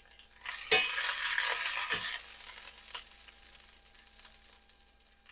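Pork chops frying in ghee in a pan. With a click about a second in, a loud burst of sizzling starts, then dies away over the next two seconds, leaving a faint sizzle.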